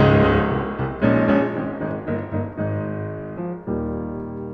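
Background piano music: a few slow chords, each struck and left to ring.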